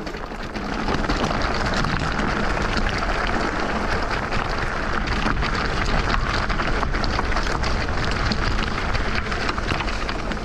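FEDDZ PF1 electric off-road bike being ridden over rough, loose ground: steady rolling and rushing noise with many small crackles of tyres on grit and stones.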